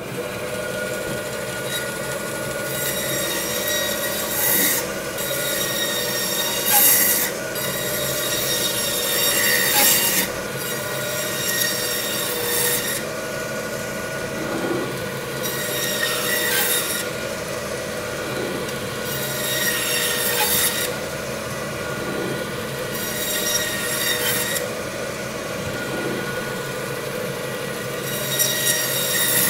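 Meat band saw running steadily with a constant motor hum while its blade cuts through the bone of a dry-aged beef porterhouse section. A harsh, high scraping rasp rises each time the blade passes through the bone and comes back about every two to four seconds.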